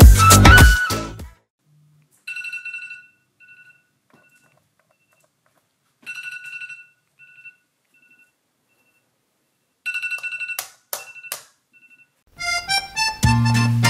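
A smartphone alarm sounds three times, about four seconds apart: each time a short high beep followed by a few quickly fading repeats. Music fades out about a second in, and music starts again near the end.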